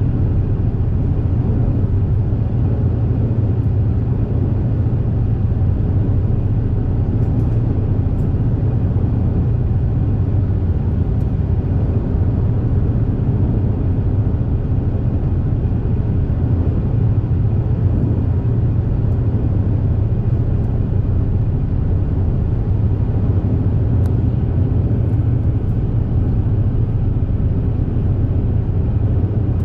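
High-speed ferry Super Jet "Zuikō" running at cruising speed, heard on board: a steady, loud rumble of engines and water with a strong low hum.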